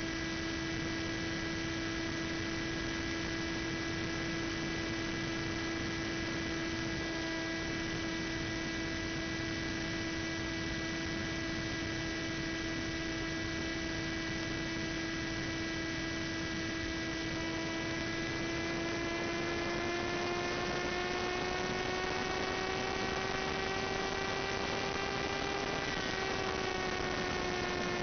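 Steady droning whine of a model plane's NTM Prop Drive 35-36 1400KV brushless motor and propeller at cruise throttle, over a hiss. Its pitch creeps up as the plane dives and drops suddenly near the end as the throttle is eased back.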